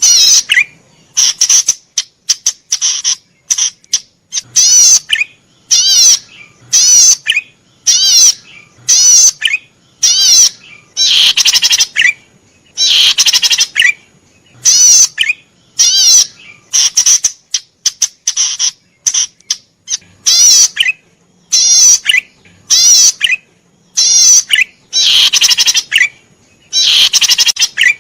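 Cici padi merah (a cisticola) singing: short, high, wavering phrases repeated roughly once a second, each phrase a quick run of warbled notes, with brief pauses between.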